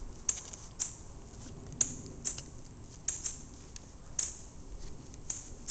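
Irregular light clicks and scratches, about two a second, as Bedlington Terrier puppies scrabble and climb over one another on the mesh fabric of a raised dog cot.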